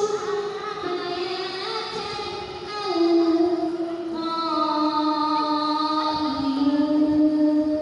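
A boy chanting in Arabic into a handheld microphone, drawing out long, ornamented notes whose pitch steps down in stages, with a long held note in the second half.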